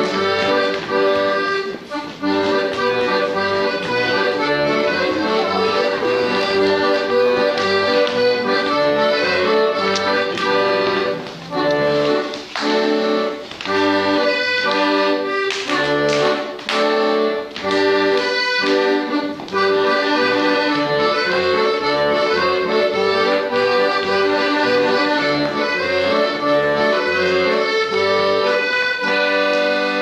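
Lively accordion folk dance music with a steady, alternating bass beat.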